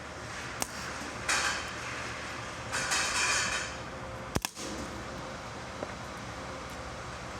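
Two short bursts of MIG welding, each a crackling hiss of under a second, about a second and three seconds in: tack welds filling small holes in a faulty weld. A couple of sharp clicks, one just before and one after the welds.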